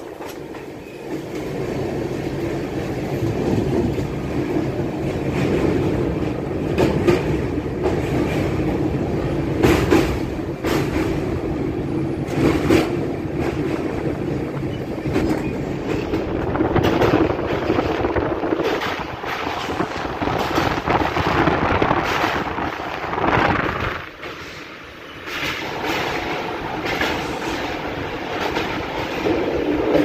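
Train running at speed across a river bridge, heard from its open doorway: a steady rumble with irregular sharp clacks of wheels over rail joints. The noise drops briefly about three-quarters of the way through, then picks up again.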